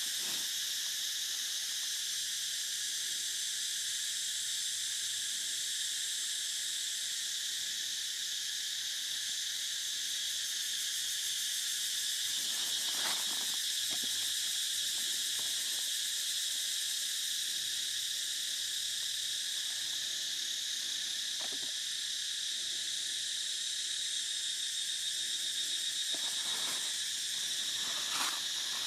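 Steady high-pitched drone of a forest insect chorus, with a few short squeaks standing out about halfway through and near the end.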